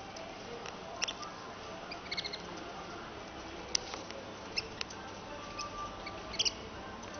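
Caged canaries giving short, high chirps, one or a few at a time at irregular moments, some in quick little clusters, over a steady low background hum.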